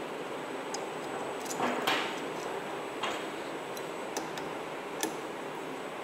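Scattered light metallic clicks and ticks, about one a second, from a Torx T30 bit driver turning screws into the body of a Bosch CP3 high-pressure diesel pump, over a steady hiss.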